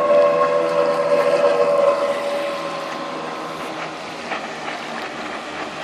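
Bentz jet boat running at speed close by. Its high engine whine dips slightly in pitch and fades over the first two seconds, leaving a quieter steady rush of engine and spray.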